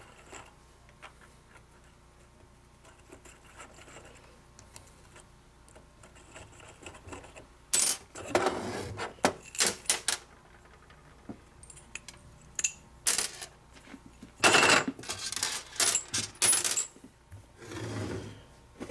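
Metal transmission parts and hand tools clinking as a Harley-Davidson four-speed transmission's shifter cover is taken apart. Faint light clicks at first, then a run of sharp metallic clanks and clatters from about eight seconds in.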